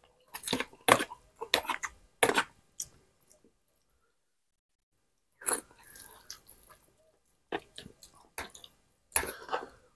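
A man eating rice and noodles: chewing and slurping mouthfuls in short clustered bursts, with a pause of about two seconds in the middle.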